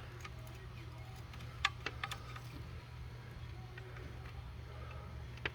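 A few light clicks and taps of small parts being handled during a gauge-panel assembly, the sharpest about one and a half to two seconds in and one more near the end, over a steady low hum.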